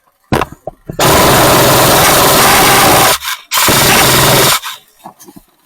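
Airsoft electric gun firing on full auto close to the microphone: a burst of about two seconds, a short pause, then a second burst of about one second, loud enough to clip, with a few clicks just before.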